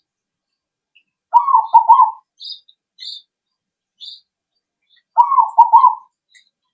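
Zebra dove (perkutut) cooing: two short rolling phrases of quick, warbling coo notes, about four seconds apart. Faint high chirps are heard between them.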